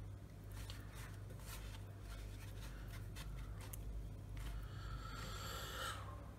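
Hands pressing and rubbing scored kasna fish into a dry coating of cornmeal, salt and chili flakes on a plastic board: soft scraping and patting, with a longer rustling scrape about four and a half seconds in, over a steady low hum.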